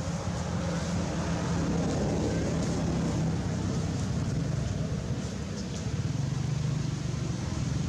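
Steady low engine hum, like a motor vehicle running, over a constant background of noise.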